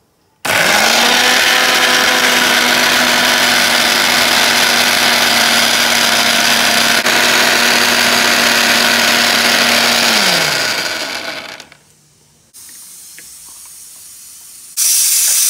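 Electric kitchen mixer grinder (mixie) running at full speed, grinding mint leaves, mango ginger, chillies and a little water into chutney. It starts abruptly, runs steadily for about ten seconds, then winds down as the motor slows, and a brief second burst of grinding follows near the end.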